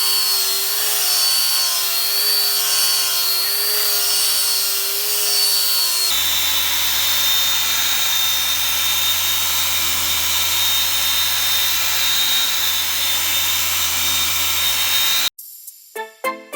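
Steady metalworking noise: a hiss with a high, fixed whine and a low hum. It changes abruptly to a slightly different pitch about six seconds in. Shortly before the end it cuts off sharply and piano notes begin.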